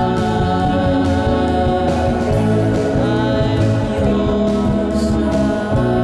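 Indie pop song playing, with a steady beat.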